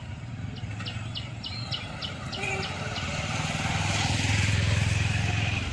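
Motor vehicle engine noise at a road-rail crossing, building as the vehicle comes close and loudest about four to five seconds in.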